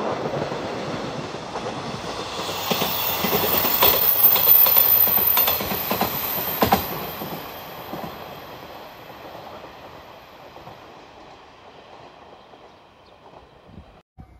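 Seto-Ohashi Anpanman Torokko train passing on the line: wheels clacking over rail joints, with a handful of sharp clacks in the middle and a thin high squeal from the wheels, loudest about four to six seconds in, then fading as it moves away.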